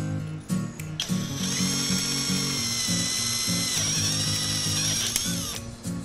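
A small electric power tool's motor whines at a high, steady pitch, starting about a second in and lasting about four and a half seconds. It shifts down in pitch partway through and winds down near the end, over background music with a steady bass beat.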